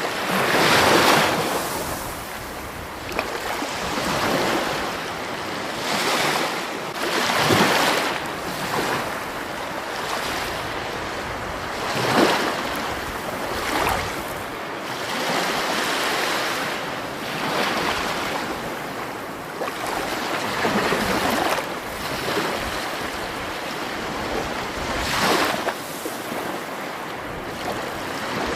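Flowing water, a steady rushing and splashing that swells in surges every couple of seconds.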